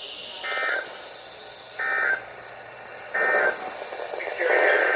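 Emergency Alert System (SAME) digital data bursts from a radio: three short warbling data-tone bursts about 1.4 s apart, then a longer burst starting near the end, over faint radio hiss. The bursts are the coded header or end-of-message signal that brackets a broadcast weather alert.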